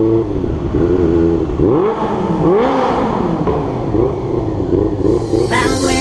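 Honda CB400SF inline-four engine with an Akrapovic exhaust idling and blipped a couple of times about two seconds in, the pitch rising and falling, then settling back to a steady idle. Its carburettors are not yet synchronised, according to the owner.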